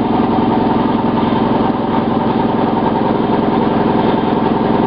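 A small handheld power tool's motor running steadily at high speed, cutting down the plastic of a dashboard trim piece.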